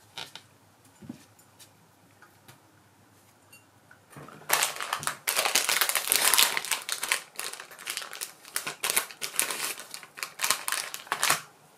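Foil pouch of face-wipe sheets crinkling and rustling as hands handle it, starting about four seconds in after a few faint clicks.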